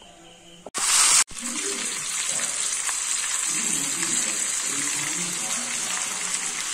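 Whole chicken sizzling steadily in hot oil in a pan: a dense, even frying hiss, preceded about a second in by a brief louder burst of hiss.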